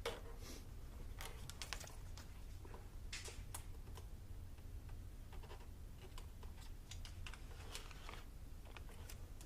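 Faint, irregular light clicks and crackles of the vortex generator's small plastic parts being handled while the backing is peeled off their double-sided mounting tape.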